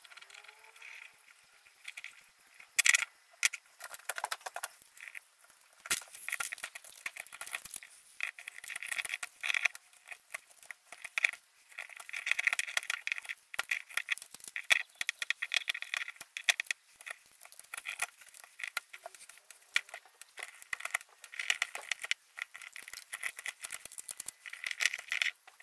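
Stanley knife whittling a small block of wood by hand: a fast, uneven run of short scraping cuts and sharp clicks as shavings come off.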